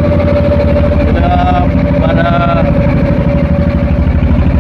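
A boat's engine running steadily with a fast, even pulse. A voice calls out twice, about a second and two seconds in.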